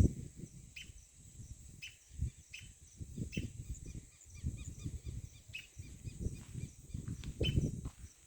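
Rural outdoor ambience: short bird chirps repeating every second or so over a steady high hiss, with irregular low rumbling noise underneath.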